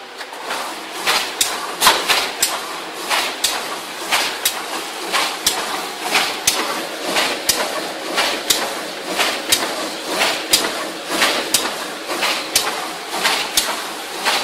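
QH-9905 paper boat tray forming and gluing machine starting up and running, its mechanism knocking in a steady rhythm of about two to three strokes a second over a continuous mechanical hiss.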